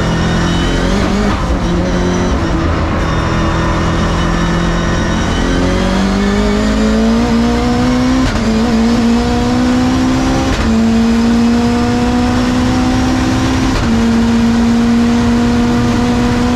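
Nissan Silvia S15 time-attack car's engine heard from inside the cockpit under hard acceleration. It holds fairly steady revs for the first few seconds, then revs climb and it upshifts three times, the pitch dropping sharply at each quick gear change and rising again after it.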